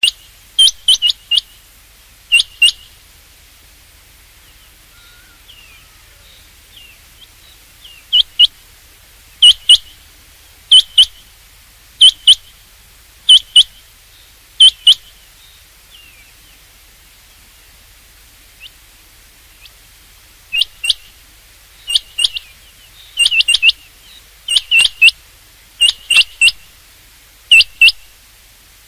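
Rain quail calling: short, high, sharp notes in pairs or small clusters, repeated about every second or so in runs, with a pause of a few seconds midway.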